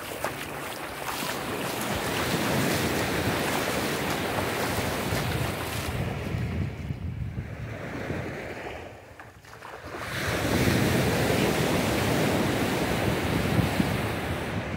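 Sea waves surging and washing in, two long swells with a short lull between them, mixed with some wind on the microphone.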